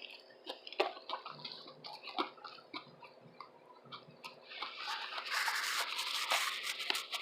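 Close-miked wet chewing of a tuna sub sandwich, with small mouth clicks and smacks. It turns louder and denser about four and a half seconds in.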